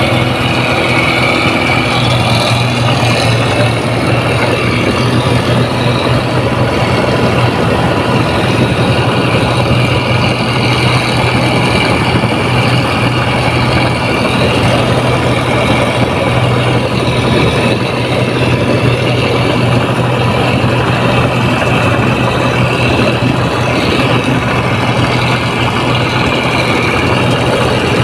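Rice combine harvester's diesel engine running steadily at constant speed: a continuous loud drone with a steady high whine over it.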